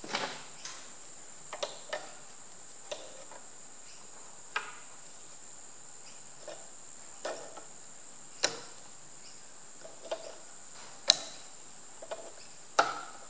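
Steel pliers clicking and scraping against the split pin and cast-iron body of a Perkins engine oil pump while the relief valve's split pin is worked out: scattered sharp metal clicks and taps, a few of them louder. A steady faint high-pitched whine runs underneath.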